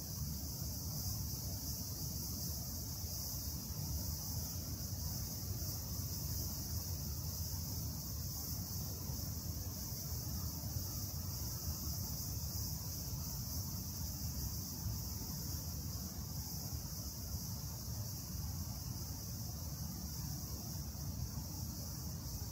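Steady, high-pitched chorus of insects that holds unchanged throughout, over a low rumble underneath.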